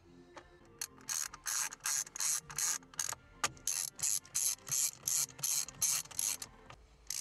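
Hand ratchet clicking in quick back-and-forth strokes, about two or three a second, with a short pause near the end. It is driving in the Torx screws that hold the airbag in the steering wheel.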